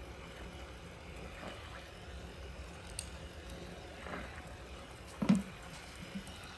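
Pool Blaster Fusion PV10 battery-powered handheld pool vacuum running underwater as it is pushed along the pool floor on a pole: a low, steady hum. A dull knock about five seconds in is the loudest sound.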